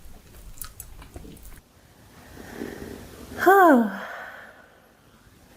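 A person's stomach growling: one loud, pitched gurgle that slides downward in pitch, a little past halfway, lasting about half a second.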